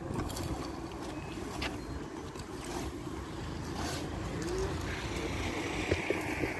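Low, steady rumble of street traffic and wind on the microphone, with a few faint scrapes of a shovel and rake working fresh asphalt.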